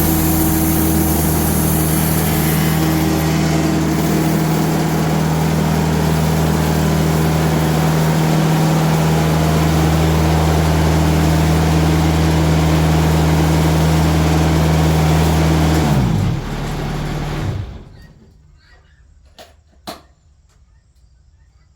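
Diesel engine of a band sawmill running steadily, then winding down and shutting off about sixteen seconds in. Two sharp clicks follow in the quiet.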